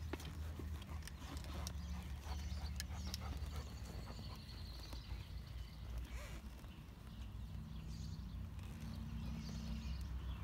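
Saddled horse standing on dirt and shifting its hooves, giving a few scattered clicks and thuds over a low steady rumble.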